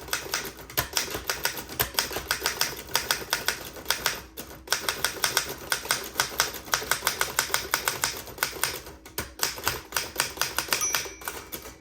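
1917 Royal 10 manual typewriter being typed on fast, its type bars striking in quick runs with two short pauses. Near the end the margin bell rings once, warning that the line is nearly full.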